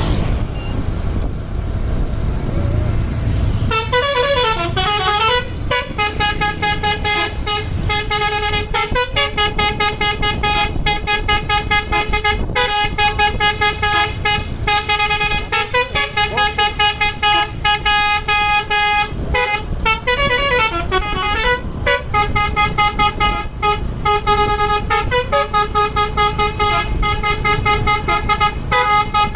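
Bus telolet horn of the basuri type playing a multi-tone tune. It starts about four seconds in over a low engine rumble, with horn notes sliding up and down, then held and chopped rapidly on and off in repeated phrases.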